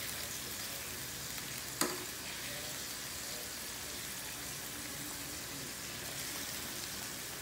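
Chicken wings cooking in a pan of boiling sauce, a steady sizzling and bubbling, with one sharp click about two seconds in. Near the end a utensil moves the wings around in the pan.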